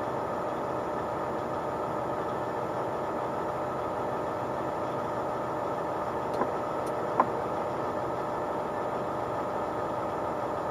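Heavy truck's engine running steadily, with two faint clicks a little past the middle.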